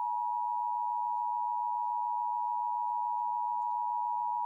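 Emergency Alert System attention signal: the steady two-tone alert tone held without a break, sitting just under 1 kHz.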